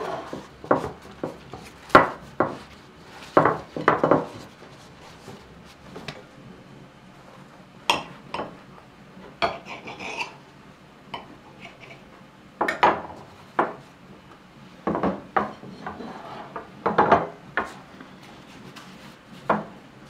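Thin lavash flatbread rustling as it is folded and wrapped by hand, with ceramic plates knocking and sliding on a wooden tabletop in irregular short clatters.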